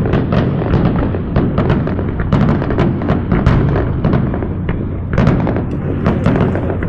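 Fireworks going off in rapid succession: a dense run of sharp bangs and crackles over a continuous low rumble of booms.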